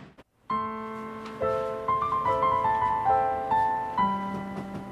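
Soft background piano music: a slow melody of held, gently decaying notes. It starts about half a second in, after a brief silence.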